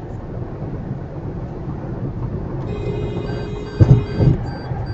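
Steady low road and engine rumble inside a moving Toyota Prius cabin. From a little past halfway an electronic tone sounds with a short beep repeating about two or three times a second, and a couple of heavy thumps come near the end.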